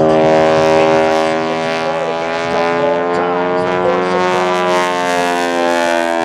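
Showcat biplane's radial engine and propeller droning steadily under aerobatic power, the pitch sagging slightly toward the end.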